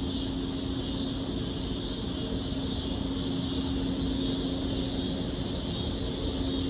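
Steady outdoor background by an urban creek: a high, even insect chorus over a low rumble like distant traffic or aircraft, with a steady low hum.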